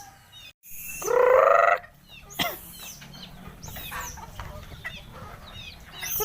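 A flock of native chickens calling: one bird gives a loud, drawn-out squawk about a second in, followed by softer clucking and thin high cheeping, and another loud call starts at the very end.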